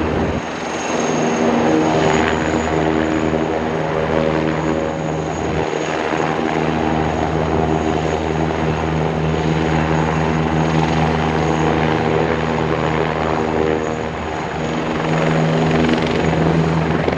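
Eurocopter Tiger ARH attack helicopter flying low past, a steady drone of rotor and twin turboshaft engines with a thin high turbine whine over it.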